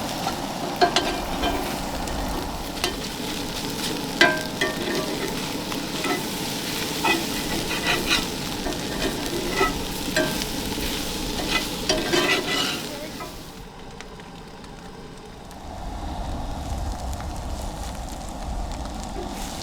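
Eggs being scrambled in a frying pan: they sizzle while a spatula repeatedly scrapes and taps against the pan. The clatter stops about two-thirds of the way through, and a low rumble comes in near the end.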